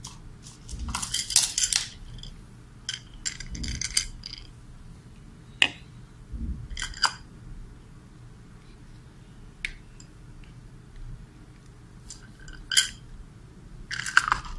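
Plastic receiver enclosure and its circuit board being handled and closed up: scattered clicks, taps and scrapes of hard plastic, in short clusters every second or two.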